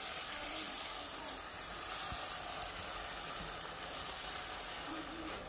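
Paneer gravy sizzling in its oil in a pan, a steady hiss: the masala is cooked to the point where the oil has begun to separate.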